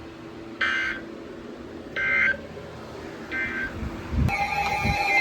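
Three short bursts of EAS end-of-message data tones, the raspy two-tone digital squawk that marks the end of an emergency alert broadcast, repeated about a second and a half apart. Music with sustained tones starts about four seconds in.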